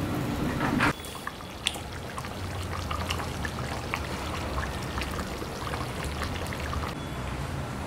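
Thick chicken gravy simmering in a pot over a wood fire: soft bubbling with scattered small pops and crackles. A louder rushing noise cuts off abruptly about a second in.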